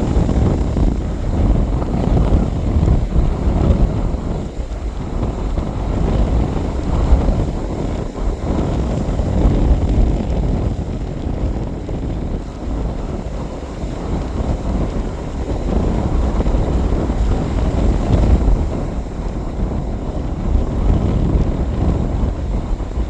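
Strong wind buffeting the microphone, a loud low rumble that rises and falls with the gusts.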